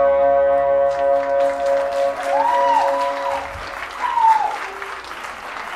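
A live rock band's final held chord rings on and fades away over the first couple of seconds. The audience breaks into applause about a second in, with a couple of rising-and-falling whoops of cheering in the middle.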